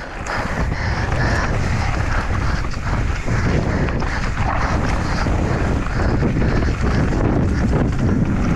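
Wind buffeting a helmet camera's microphone over the rumble of mountain bike tyres on loose gravel and rocks, with constant small knocks and rattles from the bike as it descends at speed.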